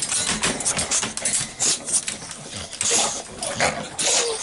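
Two excited bully-breed dogs in wire crates, making short noises and whines, with scrapes and rattles from their paws on the crate wire.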